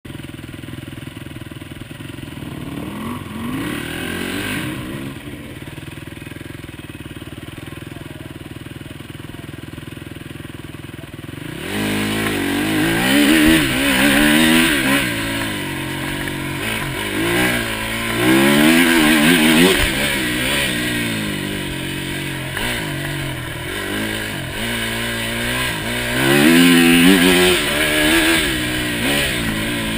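Enduro motorcycle engine ticking over with a brief rev, then about twelve seconds in it pulls away hard. Its revs climb and drop again and again as it accelerates along the course.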